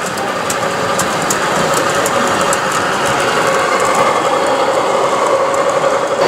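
A gauge 1 (1:32 scale) model diesel locomotive hauling hopper wagons runs steadily past, giving a steady mechanical whine with scattered light clicks.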